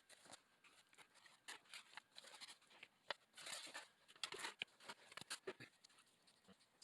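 Faint, scattered soft clicks and short rustles of a plastic grout bag being squeezed to pipe sanded grout into brick joints.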